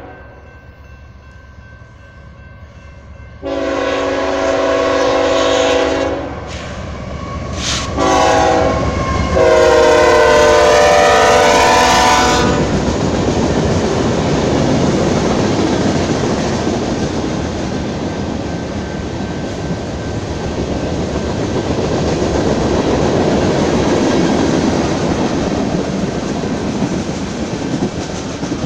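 Union Pacific freight train's diesel locomotive horn sounding the grade-crossing signal, a long blast, a short one and a final long one that dips in pitch as the locomotives reach the crossing. Then the freight cars roll past with a steady rumble and clickety-clack of wheels on the rails.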